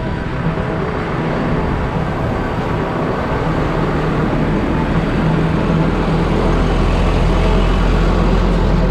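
Motor vehicle engine running steadily with road noise; the low rumble grows stronger about six seconds in.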